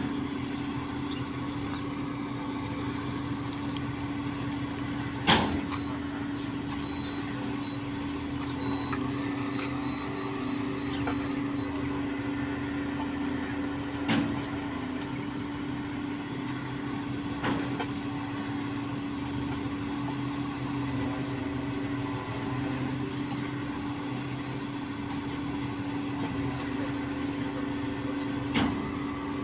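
Diesel engines of truck cranes running steadily under load while they hoist a steel water tower, a constant drone with a held hum. A few sharp knocks cut through, the loudest about five seconds in.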